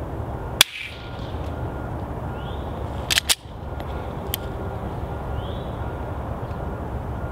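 Suppressed pistol with a Hush Puppy Model 1 silencer, firing subsonic 147-grain ammunition with the slide locked, fires one short report, the loudest sound here, with no action noise after it. About two and a half seconds later the locked slide is worked by hand: two sharp metallic clicks close together, then a smaller click a second after. A steady low background runs underneath.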